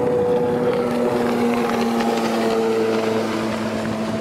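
Engine of a motorized watercraft passing at speed: a steady, loud tone with a slight drop in pitch about two seconds in.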